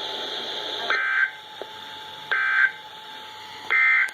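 NOAA Weather Radio receiver. The hiss of the broadcast stops about a second in, and three short, identical bursts of screechy SAME digital data tone follow, about 1.4 s apart. Bursts this short are the SAME end-of-message code that closes an EAS broadcast such as the Required Weekly Test.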